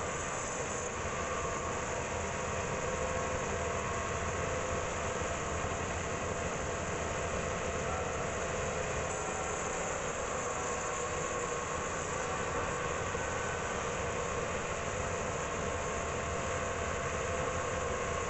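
Sawmill band saw running steadily while sawing a dry kempas hardwood log, a continuous even machine noise with no breaks.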